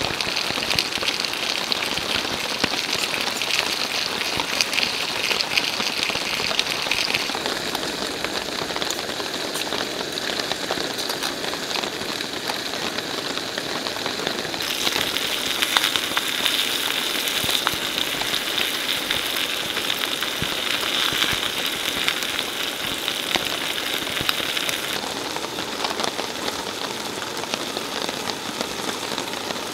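Steady rain falling on a tarp overhead, a dense even hiss full of fine drop ticks. Its tone shifts abruptly a few times.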